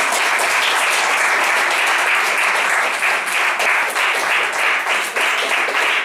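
Audience applauding, a dense steady clapping in which single claps stand out more toward the end.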